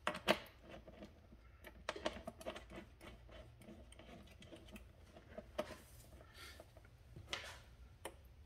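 Faint, scattered clicks and taps of battery cable lugs and terminal hardware being handled as the negative terminals of two batteries are connected together.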